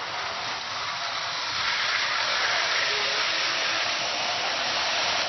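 Electric toy train running around its track on a tile floor: a steady, hissing whir of the motor and wheels that grows louder about a second and a half in.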